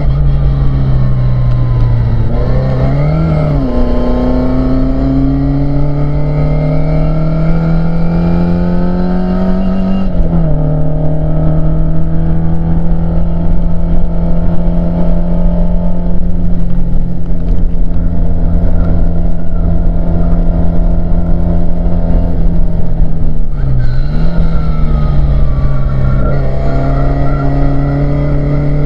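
Mk2 Ford Escort RS2000 race car's four-cylinder engine at racing revs, heard from inside the cabin. The pitch climbs and then swings sharply with gear changes about three seconds in, around ten seconds and again near twenty-four seconds, holding fairly steady in between.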